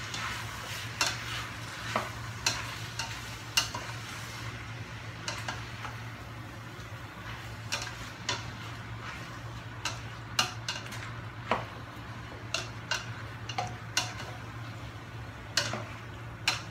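Spatula scraping and clicking against a stainless steel pot as chopped pork belly and pig intestine are stirred, with irregular sharp knocks over a light sizzle that is stronger in the first few seconds. A steady low hum runs underneath.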